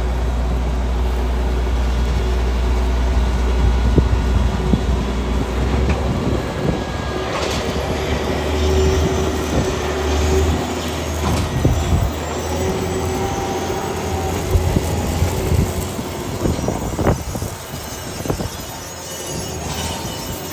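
New Holland T9.670 HD tractor at work pulling a Bourgault air drill: a deep drone with constant metallic clatter, knocks and high squeals from the rolling seeding gear. The deep drone drops away about six seconds in, leaving the clatter and squeals.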